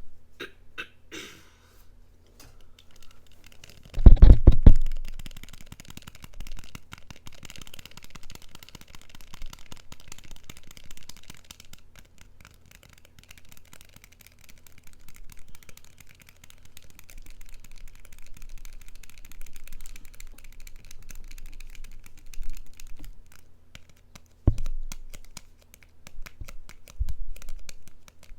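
Fast, light clicking and scratching of something handled close to the microphone. A cluster of loud, deep bumps comes about four seconds in, and a single sharp knock near the end.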